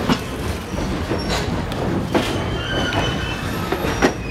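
Steam train's passenger cars rolling slowly over the track: a steady low rumble with sharp clanks and knocks from the wheels and running gear, and a few brief high squeals of the wheels on the rails.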